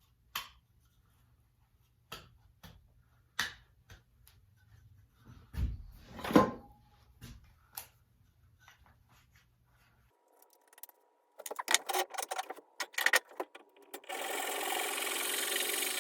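Workshop tool sounds: scattered sharp knocks and taps a second or two apart, then after a pause a quick run of clicks, and a steady whirring noise over the last couple of seconds.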